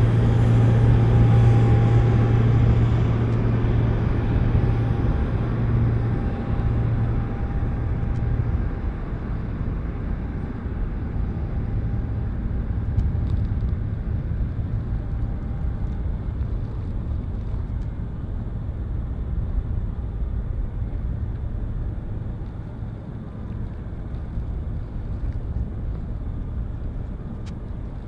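The Boeing 747-400's jet engines at taxi power: a steady rumble with a low hum and a faint whine that fade over the first eight or nine seconds, leaving a lower rumble that slowly dies away as the jet moves off.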